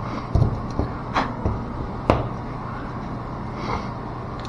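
A handful of sharp clicks and knocks as small metal valve parts are handled and fitted, the loudest about two seconds in, over a steady low machinery hum.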